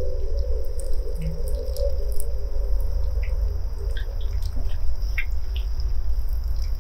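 Meat frying in an iron wok over a wood fire, sizzling with scattered short pops and crackles, over a steady low rumble.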